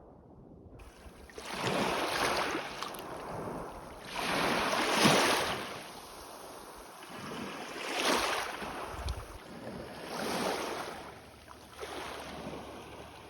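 Ocean surf on a beach: waves break and wash up five times, each rushing in and dying away, every two to three seconds.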